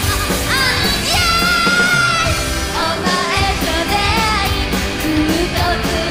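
Live rock band with a woman singing the lead over electric guitar, bass guitar and drums; she holds one long note about a second in.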